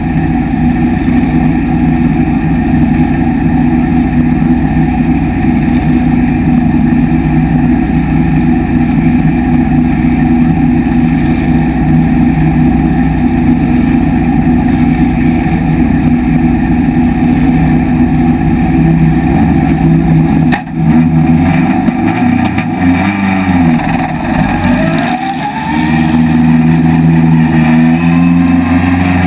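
Vintage race car engine heard from inside its open cockpit, running at a steady, loud note while the car waits on the grid. About 21 s in the sound drops out for an instant, then the revs rise and fall for a few seconds as the car moves off, settling into a steadier, higher note near the end.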